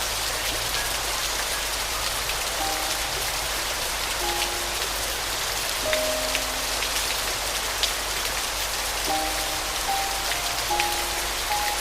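Steady rain falling, with scattered individual drops ticking, under a few slow, sparse soft piano notes.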